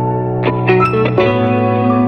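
Background music: held tones under echoing, plucked guitar-like notes, with new notes coming in about half a second in and again about a second in.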